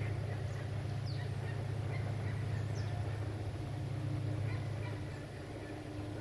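A steady low engine hum with scattered short bird chirps and whistles above it.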